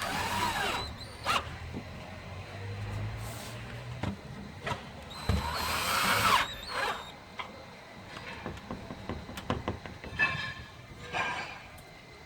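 Cordless drill-driver driving screws into the screen door's plastic fittings, in two short bursts a few seconds apart, its motor whine rising and falling, with clicks of handling between.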